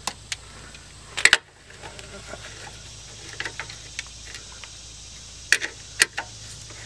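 Metal hand tools clicking and clinking against the brake hose fitting as a loosened Torx bolt is worked with pliers: scattered sharp clicks, the loudest a close pair about a second in and another pair near the end.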